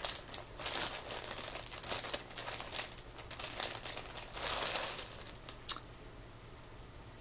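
Plastic bags crinkling as they are handled and pulled from packaging, with one sharp snap a little before six seconds in.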